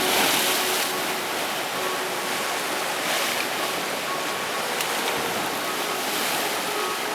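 Rough Adriatic sea surf at the start of a storm: waves washing and breaking in a continuous rush, swelling about a second in and again about three seconds in.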